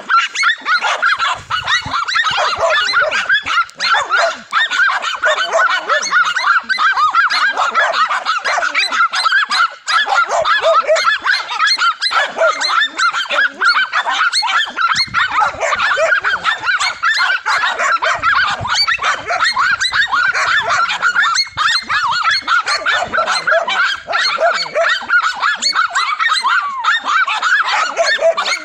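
Several dogs barking and yapping nonstop at a cornered lizard, a dense tangle of high, rapid, overlapping barks.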